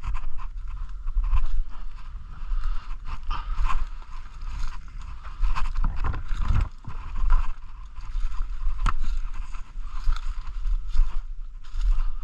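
Footsteps crunching and rustling through dry leaf litter and twigs on a forest floor, in an uneven walking rhythm, over a low rumble from the handheld camera being carried.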